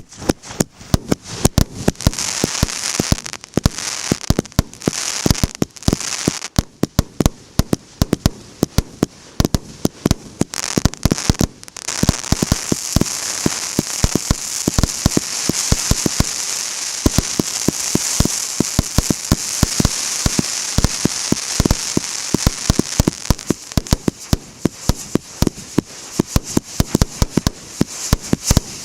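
Consumer fireworks battery (cake), the MB151 'Explosion of Emotions', firing: a rapid, uneven string of sharp bangs from launches and bursts, over a continuous crackle.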